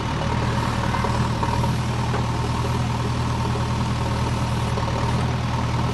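JCB backhoe loader's diesel engine running steadily as the backhoe arm digs soil.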